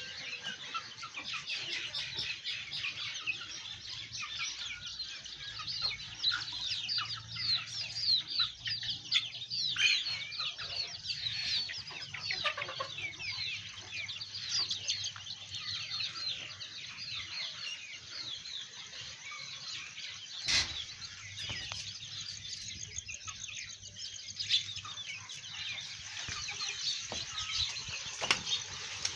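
Aseel chickens clucking, with a dense stream of short high-pitched calls through most of the stretch, busiest in the first half. Two sharp knocks sound late on.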